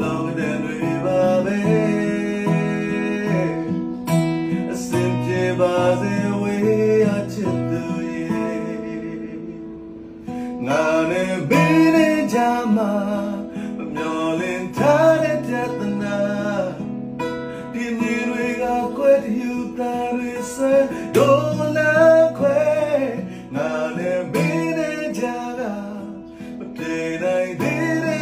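A man singing while strumming an acoustic guitar. The music dips briefly about ten seconds in before the voice comes back strongly.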